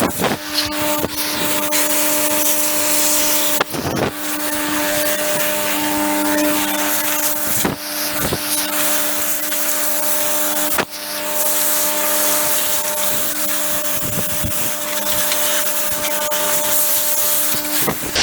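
Compressed-air blow gun hissing steadily as it blows chaff and dust out of a hay baler, cutting out briefly three times. A steady hum from the Hydrovane air compressor runs underneath.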